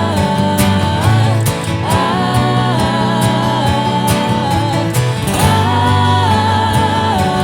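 Live acoustic folk-pop music: strummed acoustic guitar under a wordless sung melody of long held notes that glide from one pitch to the next.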